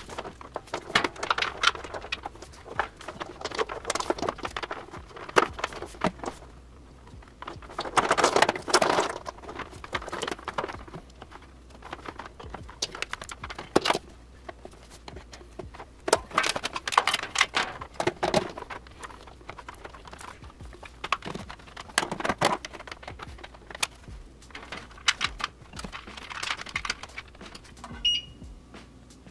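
Sped-up clicks, knocks and rustling of hands handling rack equipment and plugging power cords into a rack-mount power strip, coming in clusters. A short high beep sounds near the end.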